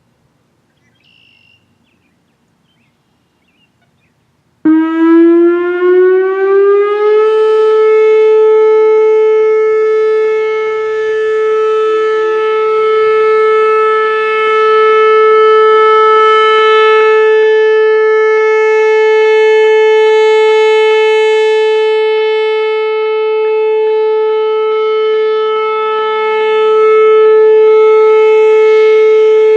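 Whelen Vortex R4 outdoor warning siren starting up about four and a half seconds in, its pitch climbing for about two seconds as it winds up, then sounding one steady loud tone whose level swells and dips slightly.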